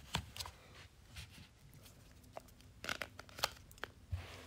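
Faint, scattered clicks and light rustles of a small plastic battery charger and its cable being picked up and handled, with a short cluster of clicks about three seconds in.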